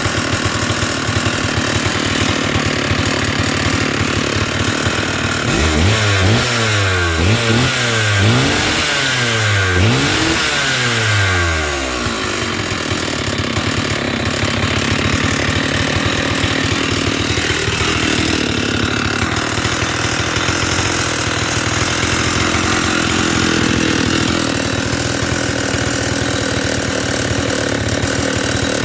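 Stihl 048 Super two-stroke chainsaw idling, then revved up and back down several times about six to twelve seconds in before settling to idle again. Its badly worn piston gives it a knocking piston slap.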